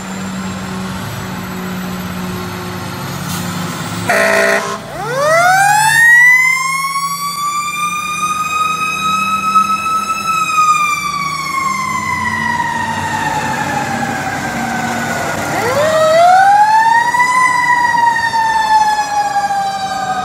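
Fire truck siren winding up slowly to a high wail and coasting back down, then winding up and coasting down a second time, over the rumble of the truck's engine. A short loud blast comes about four seconds in, just before the first wind-up.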